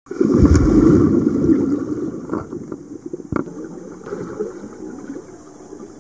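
Water churning and bubbling as heard underwater, loudest in the first two seconds and then fading, with one sharp knock about three and a half seconds in.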